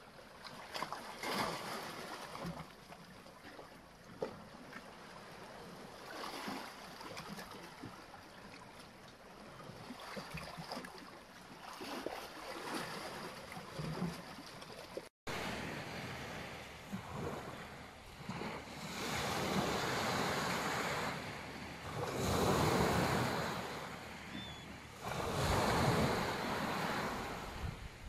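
Black Sea waves: gentle lapping and small splashes among shore rocks, then, after a cut about halfway, small waves breaking and washing up the beach in louder surges about three seconds apart.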